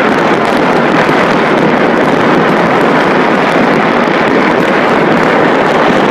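Steady, dense din of countless fireworks and firecrackers going off across a city at once, merging into one continuous roar.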